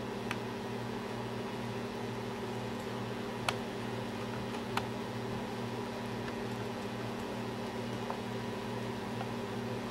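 Steady low machine hum over a hiss, with a few faint sharp clicks, the sharpest about three and a half seconds in.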